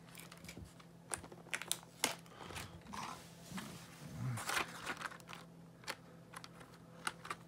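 Clear plastic blister packaging being handled: scattered clicks and taps, with a stretch of crinkling as the accessory tray is lifted out of the box.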